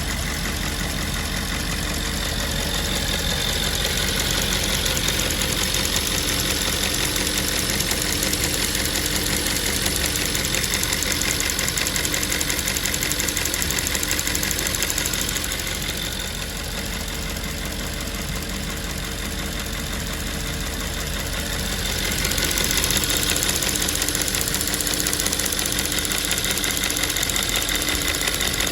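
Audi S5 4.2 V8 engine idling with a fast, steady ticking over the engine sound, the symptom of a faulty fuel purge valve. It drops quieter for several seconds in the middle, then comes back up.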